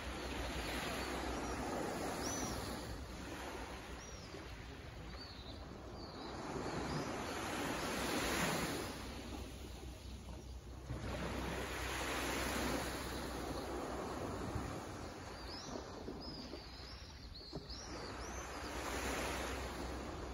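Small waves washing up on a sand beach, the surf swelling and fading every few seconds. Short high bird chirps come in twice, a few seconds in and again in the second half.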